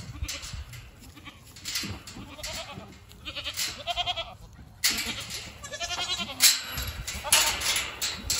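Goats bleating: two wavering calls, one about three seconds in and another about five and a half seconds in, among short scuffling noises.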